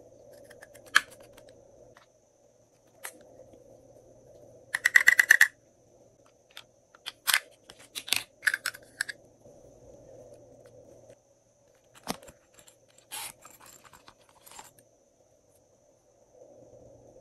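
Small plastic glitter containers being handled: sharp clicks and taps as they are opened and set down, and a quick burst of rapid rattling about five seconds in as glitter is shaken out onto slime.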